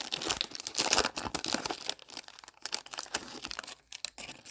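Foil trading-card pack wrapper being torn open and crinkled by hand, loudest in the first couple of seconds and thinning out near the end.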